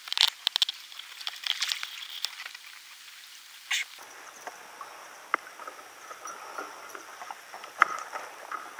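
Small water splashes and drips with scattered light clicks as a caught largemouth bass is lifted from the water and handled. From about four seconds in, a faint steady high hiss lies underneath.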